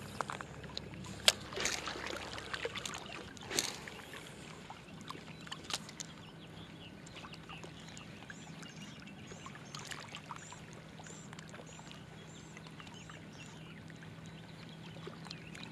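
Spinning rod and reel being cast and reeled in, with a few sharp clicks and knocks in the first few seconds and small water lapping at the shore. A bird chirps repeatedly from about six seconds in.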